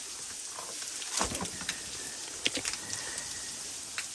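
Footsteps crunching and scuffing on dry leaves, twigs and rock: scattered crackles and clicks, a heavier step about a second in, over a steady high hiss.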